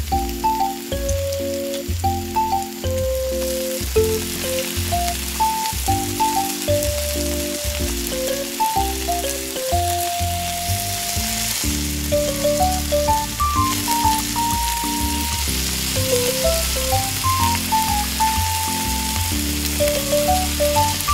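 Flour-battered chicken pieces deep-frying in hot oil in a miniature wok: a steady crackling sizzle that sets in about a second in. Background music with a melody and bass plays along.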